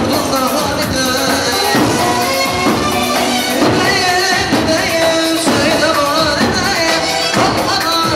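Amplified live band playing Turkish folk dance music for a halay line dance, with a steady beat and a wavering melody, and a male singer on the microphone.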